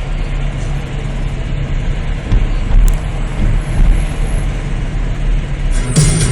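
Steady low rumble of a motor vehicle running, with no distinct events. Music comes in near the end.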